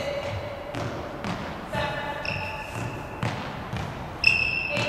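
Court shoes squeaking sharply on a badminton court floor and feet thudding as a player does shadow footwork, with several footfalls and high squeaks about two seconds in and again near the end.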